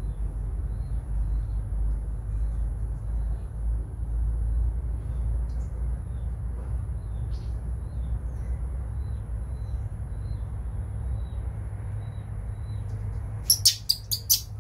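Water splashing in a metal basin as a baby monkey is bathed: a quick run of four or five sharp splashes near the end, the loudest sounds here. Faint short high chirps come again and again over a steady low rumble.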